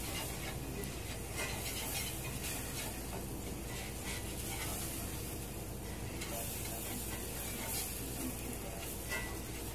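Metal whisk stirring and scraping melted butter and brown sugar around a cast-iron skillet, over a steady low sizzle from the hot pan.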